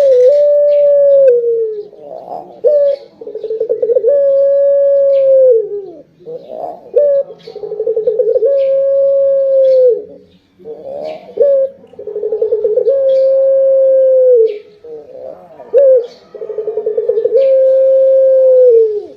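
Six-month-old Barbary dove (puter) cooing: a short note or two, then a long held coo that drops at its end, repeated about every four seconds, five times.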